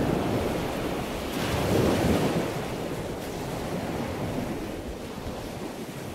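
Ocean surf washing up a beach in a steady rushing hiss. A wave swells up about two seconds in, and then the rush slowly eases off.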